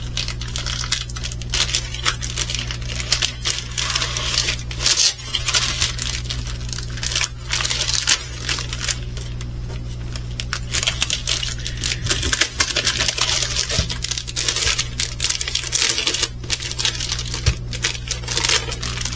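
Plastic packaging crinkling and rustling as it is handled and opened, with irregular crackles throughout, over a steady low hum.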